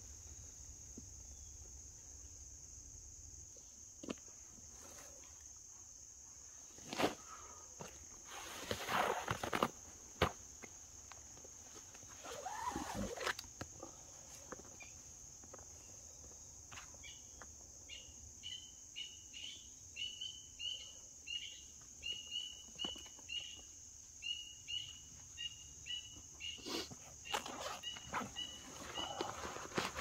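Outdoor woodland sound: a steady high-pitched insect drone, a few scattered footsteps and knocks, and from about halfway a run of short repeated chirping calls, a little under two a second.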